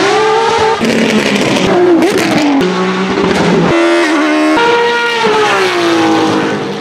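A rapid sequence of different racing car engines at high revs, spliced together: the engine pitch rises and falls as each car accelerates and lifts off, and changes abruptly every second or so as one clip gives way to the next.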